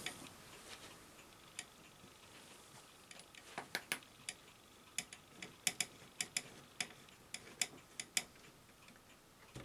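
Screwdriver tightening a small screw in a Betamax video recorder's mechanism: one sharp click about a second and a half in, then a run of irregular sharp clicks from about three and a half seconds in until near the end.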